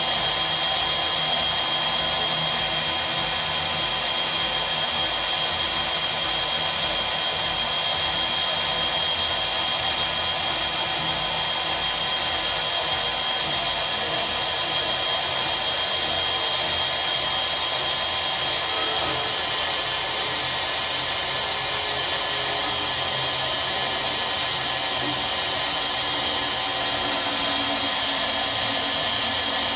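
Portable bandsaw running steadily, its motor and blade drone holding level with a steady high whine throughout.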